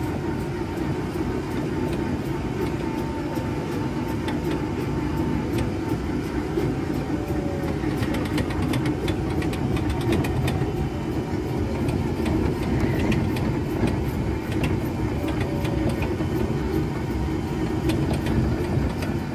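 Ride tractor vehicle running steadily as it travels along the ride route, a continuous low mechanical drone, with light clicks and rattles through the middle and latter part.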